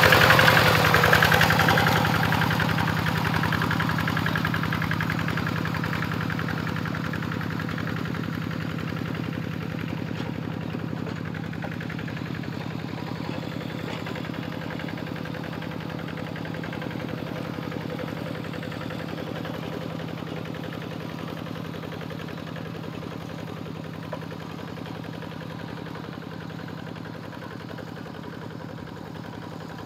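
Single-cylinder diesel engine of a two-wheel hand tractor running steadily with cage wheels in a wet rice paddy, its sound growing steadily fainter as the tractor moves away.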